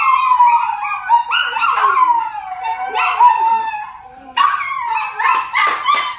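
Miniature schnauzer howling: a run of high, wavering howls that slide downward in pitch, with a brief break about four seconds in. Near the end, hands clap rapidly.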